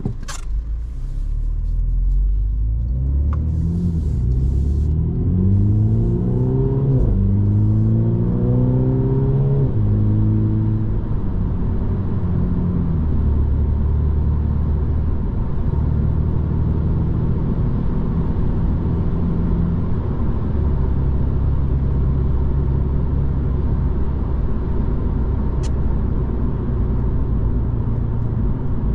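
2022 Mini Cooper S's 2.0-litre four-cylinder petrol engine, heard inside the cabin, pulling up through the gears. Its pitch rises twice over the first ten seconds and drops back at an upshift in between. It then settles into a steady cruise under the tyre and road noise. A sharp click comes right at the start.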